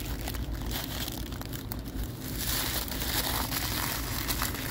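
Paper food wrapper crinkling and rustling in the hands as a patty wrapped in it is held up and bitten into, with many small irregular crackles.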